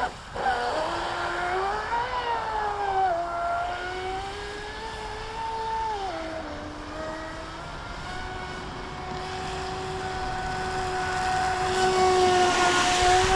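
Pro Boat Sonicwake 36 RC boat's brushless motor whining at low, varying throttle. Its pitch rises and falls slowly, then holds steady, with a hiss swelling near the end. The ESC has been cutting out, so the boat is running at part power.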